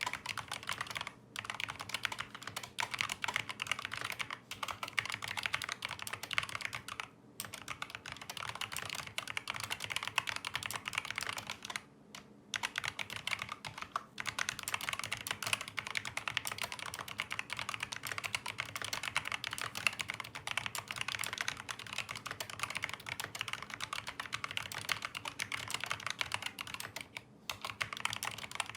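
Rapid continuous typing on a COX CK200 tenkeyless mechanical keyboard with Kailh optical linear switches, resting on a large desk pad: a dense run of key clacks broken by a few brief pauses.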